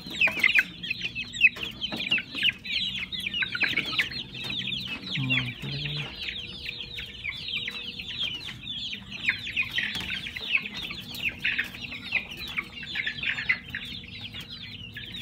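Many baby chicks peeping together: a dense, continuous chorus of high, falling peeps.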